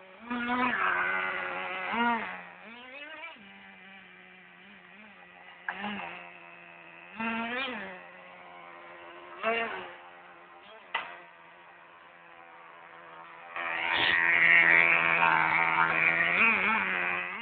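Radio-controlled truck's motor buzzing steadily with short revs that rise and fall in pitch every few seconds, then a long, loud run from about three-quarters of the way in.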